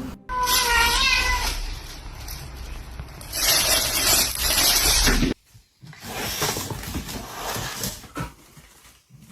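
A cat meowing: one drawn-out, wavering call about a second long near the start. Louder noise follows and cuts off abruptly about five seconds in.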